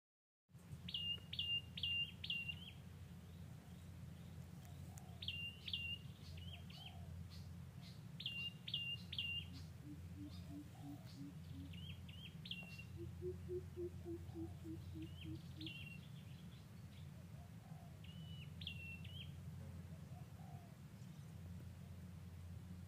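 A songbird singing a repeated phrase of sharp, quick chirps every few seconds, loudest in the first few seconds. About ten seconds in, two low runs of about eight quick hoots come from another creature, over a steady low hum.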